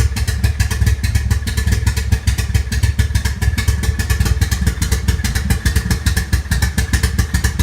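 Toyota MR2 Turbo's 3S-GTE turbocharged four-cylinder engine running roughly, with a fast, uneven pulsing. The owner takes the rough running for a misfire and suspects boost or vacuum leaks.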